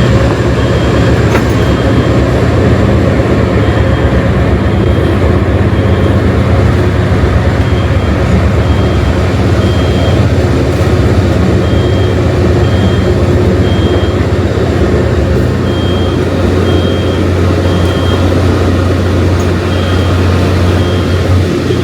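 Loud, steady rumble of a passenger train riding over the rails behind a steam locomotive, with a smoke detector beeping high-pitched over and over, set off by the locomotive's heat and smoke after a tunnel.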